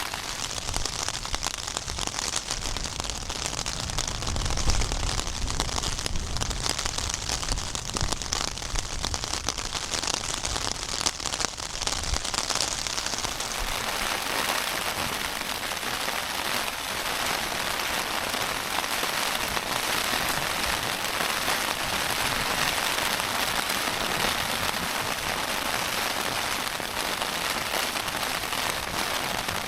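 Heavy rain pattering on the Nordisk Oppland 2LW tent's flysheet, a dense hiss of drops, with low rumbling wind gusts in the first half. About halfway through, the gusts ease and the rain settles into a steadier hiss.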